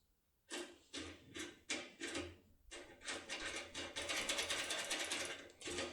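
Foil impression pick being worked right and left inside a Securemme K64 lock cylinder: quiet metallic scraping clicks, coming faster and running together after about four seconds.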